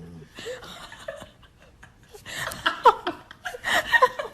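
People laughing and chuckling in short broken bursts, heaviest in the second half.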